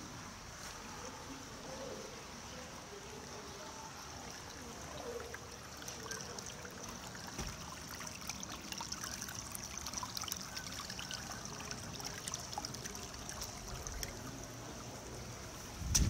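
Water trickling and swirling with a fine crackle of small ticks, getting busier about six seconds in. A heavy low thump comes right at the end.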